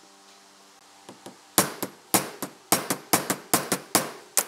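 Hammer striking a steel socket about a dozen times, several blows in quick pairs, to drive a bearing down onto the circular saw motor's armature shaft. The metal-on-metal blows start about a second in, each ringing briefly.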